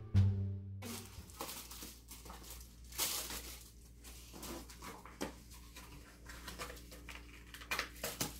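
A Labrador retriever tearing and chewing a sheet of paper on the floor: irregular rips and paper rustles, the loudest rip about three seconds in.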